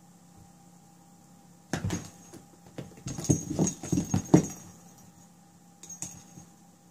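Kitten batting and leaping at toy balls dangling on strings from a carpeted cat tower: a run of knocks and thumps against the box and wooden floor for about three seconds, with a faint high jingle. A few lighter taps with the same jingle follow near the end.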